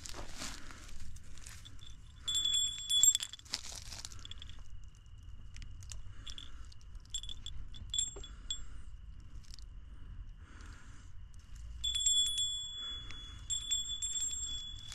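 Small metal objects clinking and jingling in two spells, about two seconds in and again near the end, each clink with a bright ringing tone, over a faint steady high whine and soft rustling.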